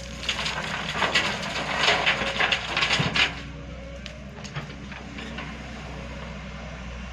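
Rocks clattering and crunching as they are loaded, over a steady diesel engine hum; the clatter stops abruptly about three seconds in, leaving only the engine.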